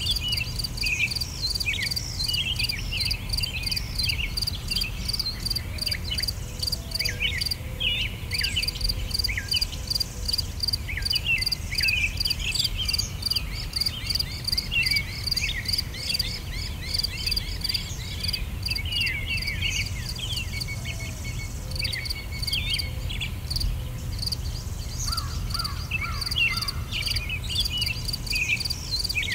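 Nature ambience: a steady, evenly pulsing insect chorus with many short bird chirps over it and a low steady rumble underneath.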